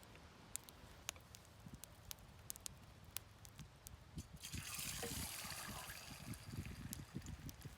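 A few scattered small clicks, then about four seconds in water starts pouring with a hissing rush and low gurgles for about three seconds.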